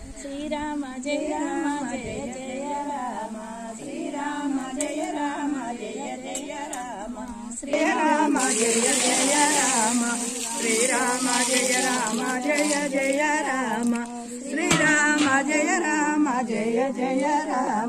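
A group of women and men singing a devotional Rama chant together. A loud rushing hiss joins the singing from about eight seconds in and fades a few seconds later.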